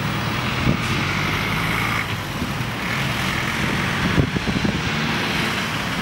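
Jet engines of a Boeing 767-300ER running steadily at taxi power, a distant hum with a higher whine on top. Gusts of strong wind buffet the microphone about a second in and again around four seconds in.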